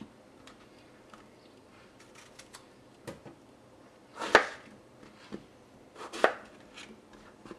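Kitchen knife cutting eggplant pieces and knocking on a plastic cutting board. Three clear knocks, the loudest about four and a half seconds in, with lighter taps between.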